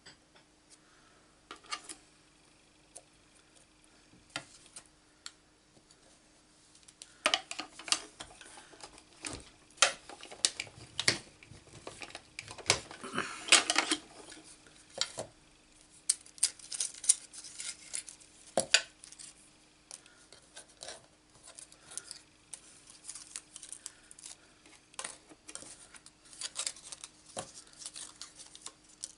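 Clicking and clattering of plastic die-cutting plates and thin metal cutting dies being handled and set down on a craft mat. The taps are sparse at first, then come thick and loudest for a stretch of about ten seconds in the middle, then thin out again.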